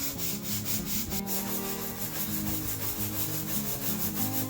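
Background music: sustained low notes that change pitch in steps, over a fast, even scratchy beat like a shaker, about four to five strokes a second.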